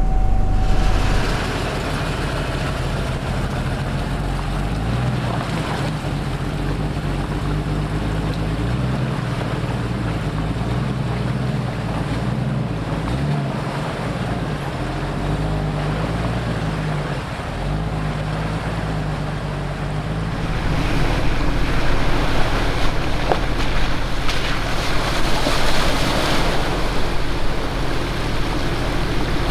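Jeep Wrangler engines running slowly along a muddy off-road trail, the engine note rising and falling with the throttle. About two thirds of the way in the sound turns louder and noisier as a Jeep drives through a water-filled mud hole, with water splashing.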